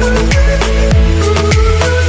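Background music with a steady beat: deep bass drum hits that drop in pitch, about two a second, under held synth notes.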